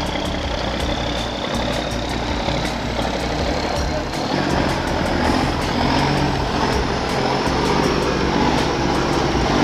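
Heavy logging truck's engine working hard under a full load of timber on a steep climb, running steadily with a thin whine that slowly rises in pitch.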